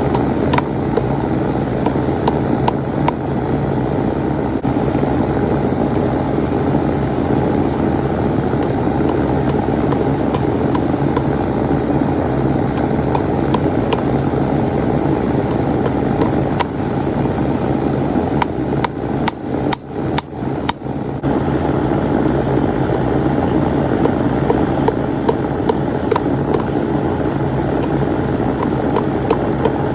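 Hammer striking hot steel on an anvil in scattered, irregular blows, over a steady low hum, which is typical of a running forge.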